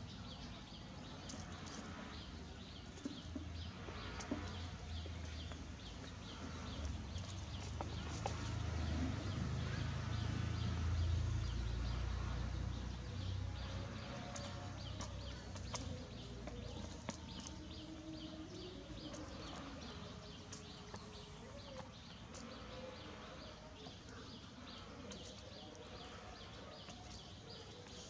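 Cockerel and chicks foraging, with short high peeps or ticks repeating throughout. A low rumble swells in the middle and fades away.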